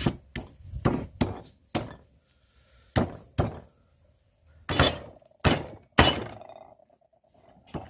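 An irregular series of about a dozen sharp thunks and cracks, each a short hard strike, with a pause in the middle and a brief ringing after the last strikes.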